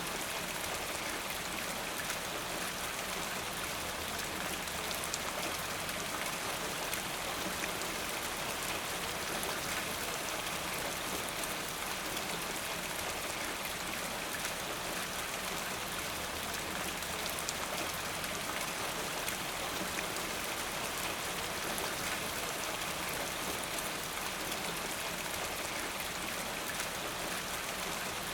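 Steady rainfall, an even hiss with individual drops pattering on a surface.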